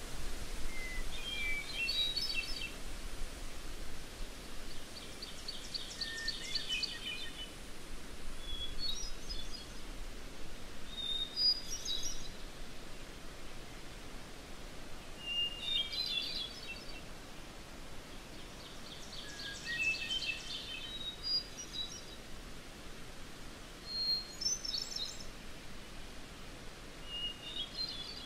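A songbird singing short, high song phrases every two to four seconds, twice with a fast trill, over a steady faint hiss of wilderness background.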